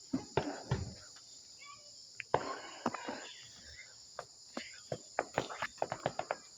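Steady high chirring of night insects such as crickets, with a scatter of short sharp pops and clicks that come thick and fast in the second half.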